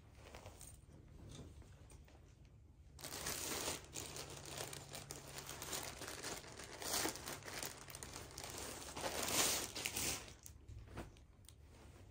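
Clear plastic clothing bag crinkling as it is handled and a garment is pulled out of it. The crinkling starts about three seconds in, comes in several louder surges, and dies away near the end.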